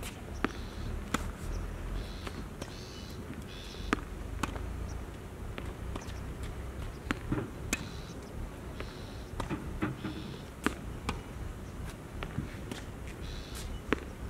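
Tennis balls struck by rackets and bouncing on a hard court during a rally: sharp pops at irregular intervals, about one or two a second.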